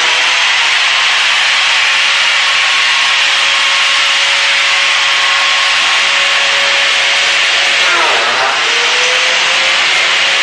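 Biscuit (plate) joiner's electric motor running at full speed, a loud steady whine with hiss. About eight seconds in, its pitch drops sharply and climbs back.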